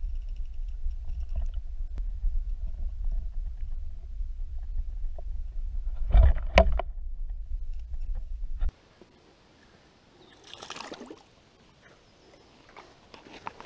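Muffled low rumble of stream water heard through a submerged camera's waterproof housing, with a few sharp knocks about six seconds in. The rumble cuts off suddenly about nine seconds in, leaving a much quieter stream bank with a short rustle and a few faint clicks.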